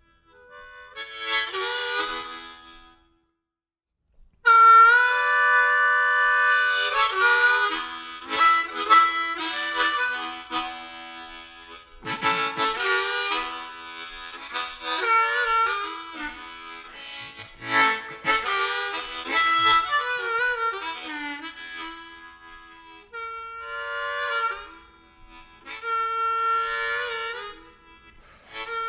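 Background music led by a harmonica playing melody and chords; a short opening phrase, a pause of about a second, then the tune carries on.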